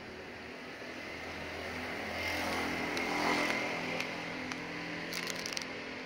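A motor vehicle passing on the street: its engine and tyre noise swell to a peak about halfway through and then fade. A few light clicks and a brief rustle come near the end.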